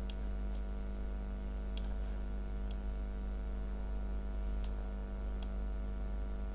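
A few scattered single clicks of a computer mouse and keyboard, about six in all, over a steady low hum.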